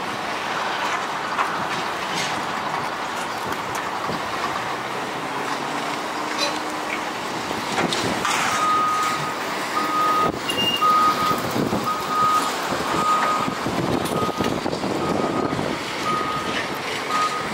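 Caterpillar demolition excavator working a brick wall: the engine runs under load, with crunches and crashes of breaking masonry and debris. From about halfway through, a backup alarm beeps steadily, a little more than once a second.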